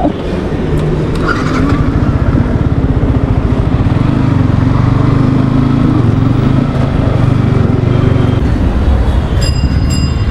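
A motor vehicle's engine running close by: a loud, steady low drone with a fast even pulse that builds over the first second or two. A few short high-pitched tones sound near the end.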